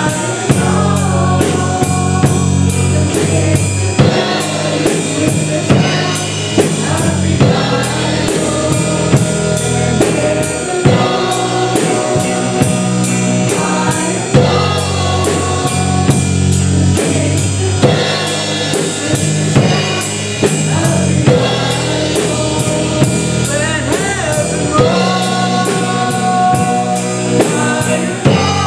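Live contemporary worship band playing a song: drum kit keeping a steady beat under bass and electric guitar, with voices singing the melody.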